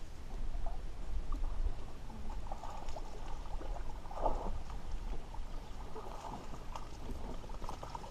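Water splashing and lapping in irregular bursts over a steady low rumble, with the loudest splash about four seconds in.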